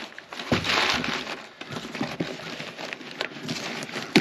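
Brown packing paper crinkling and rustling as it is handled in a cardboard box, with a run of small knocks and taps from the box.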